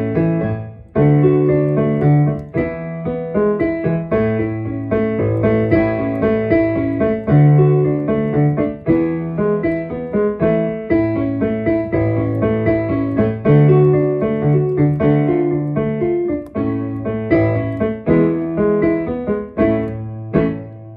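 Upbeat piano music, a steady bass line under bouncing chords, played for children to spin around to.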